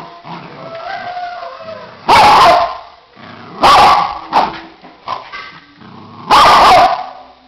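Small white fluffy dog whining and howling in a wavering high pitch, broken by three very loud barks close to the microphone.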